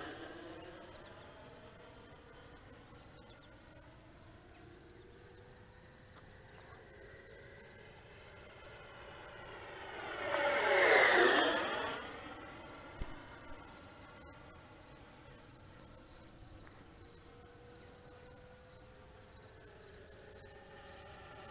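E-flite Viper 90mm electric ducted-fan jet flying, its fan whine faint while it is far off, then swelling in a low pass about ten seconds in, loudest for a couple of seconds with its pitch dropping as it goes by, then fading again. A steady high insect trill runs underneath.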